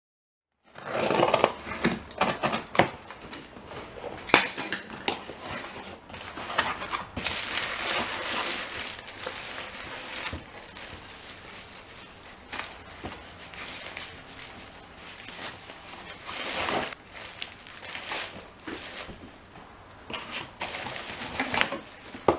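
A parcel holding a replacement circuit board being unwrapped by hand: packaging rustling and crinkling, with clicks and knocks as the parts are handled.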